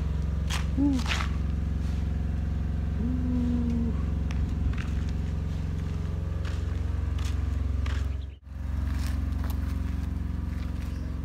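An engine idling steadily, an even low hum that drops out briefly about eight seconds in.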